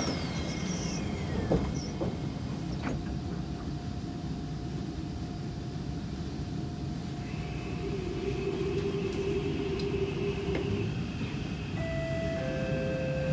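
Kawasaki C151 metro train's doors closing, with a falling whine and a sharp knock about a second and a half in. The train then pulls away: from about seven seconds in a steady electric motor whine sounds over the rumble of the car, its tones stepping lower near the end as it gathers speed.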